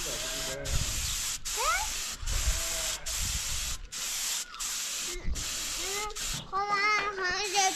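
Compressed-air paint spray gun hissing as it sprays paint, in repeated bursts with short breaks under a second apart. A child's voice is heard near the end.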